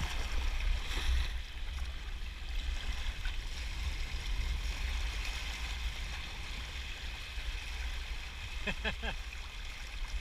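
Churning white water of a tidal race rushing around a sea kayak, a steady hiss and splash, with wind buffeting the microphone in a low rumble.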